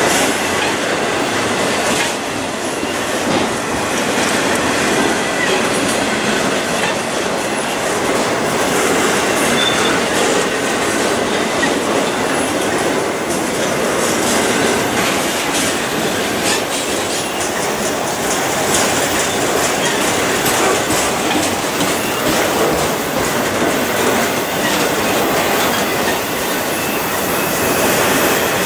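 Freight train's autorack cars rolling past close by: a steady rumble and rattle of steel wheels on rail, with a constant run of clicks as the wheels cross the rail joints.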